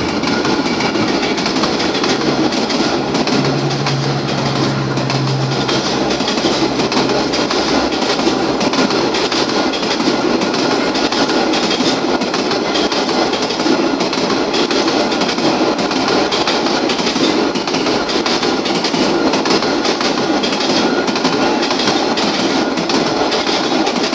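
Vietnam Railways passenger coaches rolling past close by: a steady, loud noise of steel wheels on the rails, with the clatter of wheels over the rail joints.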